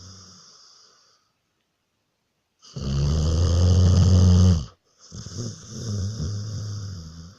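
Loud, slow snoring. The last snore fades out in the first second. After a quiet gap, two long snores of about two seconds each follow, and the first of them is the loudest.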